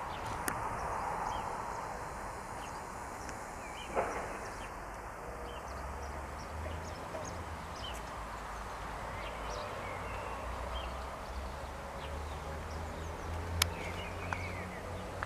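Outdoor ambience: a steady low rumble and hiss with scattered short bird chirps, and a few sharp clicks, one about four seconds in and the loudest near the end.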